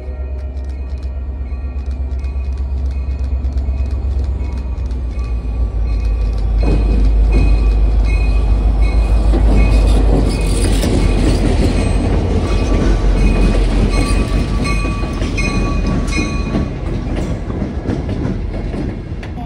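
An MBTA diesel locomotive rolls slowly past close by, its engine rumbling, louder from about six seconds in as it comes alongside. A railroad crossing bell dings steadily throughout.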